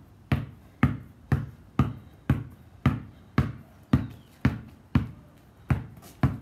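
Two basketballs dribbled on concrete in a crossover drill, one ball bounced high while the other is crossed over, giving a steady rhythm of about two bounces a second.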